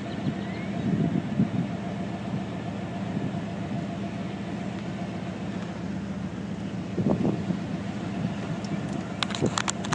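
Steady hum of an idling vehicle engine, swelling briefly about seven seconds in, with a few faint clicks near the end.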